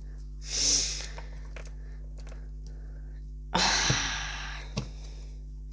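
A person's breathy exhales, like sighs: a short one about half a second in and a longer, louder one past the middle. A few faint clicks of small plastic toy figures being handled come in between.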